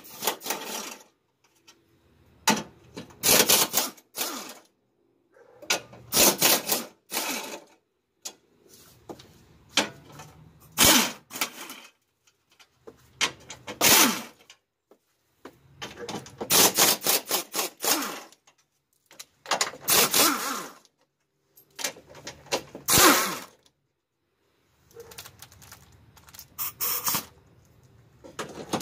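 Cordless power driver spinning out bolts in about ten short bursts of a second or two each, with brief pauses between them as it moves from bolt to bolt.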